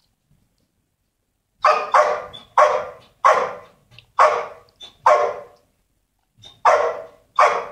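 A dog barking: eight loud, sharp barks at uneven intervals, starting about one and a half seconds in, each trailing off in an echo, with a longer pause before the last two.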